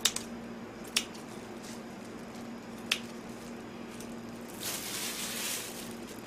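Kitchen scissors cutting raw pork belly into a pan of kimchi stew: three sharp snips in the first three seconds, then a brief soft rustling hiss about five seconds in, over a steady low hum.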